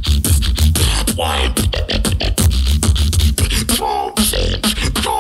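Live competitive beatboxing through a microphone and PA: a fast run of vocal drum sounds, snare and hi-hat clicks over a heavy sustained bass, with short pitched vocal glides.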